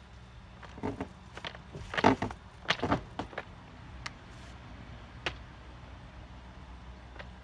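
Metal door latch and its hanging chain on a solar kiln door rattling and clanking as the door is fastened shut: a cluster of clanks in the first few seconds, then a couple of single clicks.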